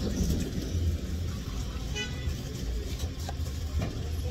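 Steady low rumble of a road vehicle, with a short car horn toot about two seconds in.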